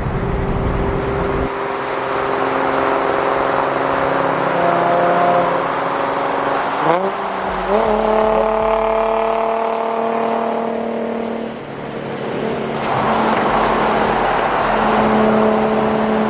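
Car engine running, with a quick rev up in pitch about seven seconds in, then the pitch sinking slowly for a few seconds before settling into a steady run near the end.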